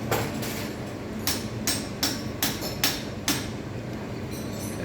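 A series of about seven sharp metallic clicks or taps, roughly two a second, as the lathe is set up for the next cut, over a steady low machine hum.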